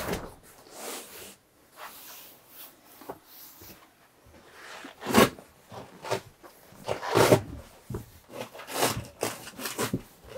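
Padded leather bench-seat cushion being lifted and folded up by hand: a few short knocks and rubbing sounds, the loudest about halfway through and near the end.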